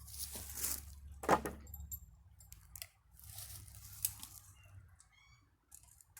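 Pieces of wood being handled and scraped into place, with one sharp knock about a second in. A short run of high chirps comes near the end.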